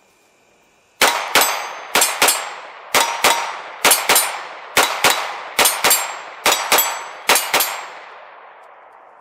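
Glock 45 9 mm pistol in an MCK carbine conversion kit fired in eight quick double taps, sixteen shots in all, starting about a second in with a pair roughly every second. Steel targets ring from the hits, and the ringing fades away after the last pair.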